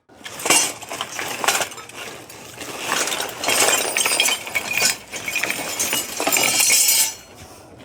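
Used motorcycle parts, mostly metal, clinking and clattering against one another as they are rummaged through, a dense run of knocks and rattles that stops about seven seconds in.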